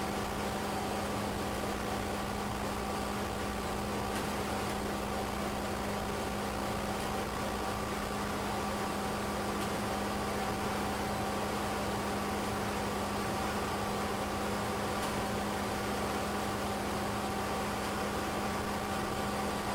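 Rotary shear shredder running steadily, a constant mechanical hum with a low drone and a couple of fixed higher tones. No separate crunches or knocks stand out.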